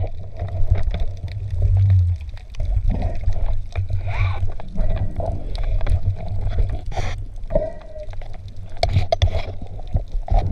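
Water sloshing and gurgling around the camera, with a steady low rumble and many scattered clicks.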